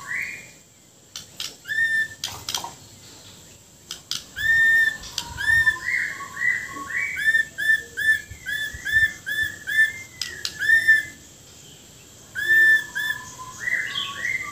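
Caged Bornean white-rumped shama (murai batu Borneo) singing: short, clear whistled notes repeated in quick runs of about three a second, broken by a few brief pauses and sharp clicking notes.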